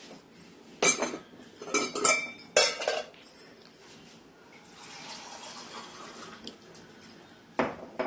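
Glass and steel kitchenware clinking several times, then water poured from a glass tumbler into a steel mixer-grinder jar of ground spices, with one more sharp clink near the end as the glass meets the jar.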